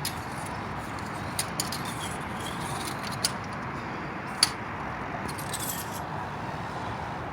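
A few small metallic clicks and light rattles from a transmission dipstick being pulled out and handled, over a steady background hiss.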